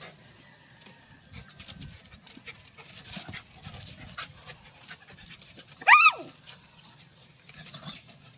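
Two dogs playfighting: scuffling on concrete and panting, with one loud, short yelp about six seconds in that rises and then drops sharply in pitch.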